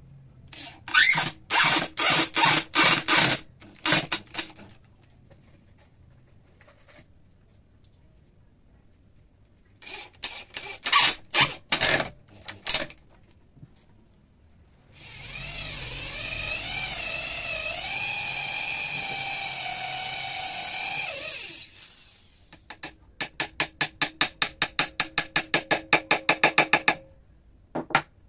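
Two runs of sharp knocking on wood, then a cordless drill boring into a wooden beam for about six seconds, its whine wavering as it cuts. Near the end, a fast run of even taps, about six a second, as a glued wooden dowel is driven into the drilled hole.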